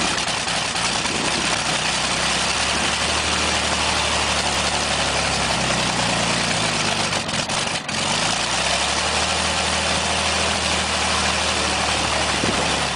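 Junkers Jumo 211 inverted V12 aero engine of a Junkers Ju 87 Stuka idling steadily on the ground, with a short dip in the engine note about eight seconds in.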